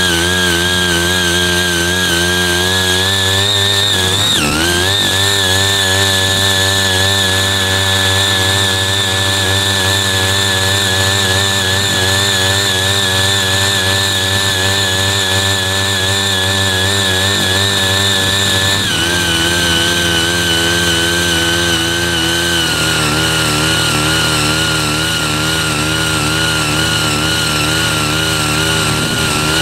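Small engines of CY80 mini power tillers running steadily under load as the rotary tines churn the soil. About four seconds in the engine note dips briefly and recovers, and later it steps down in pitch twice, settling at a lower speed.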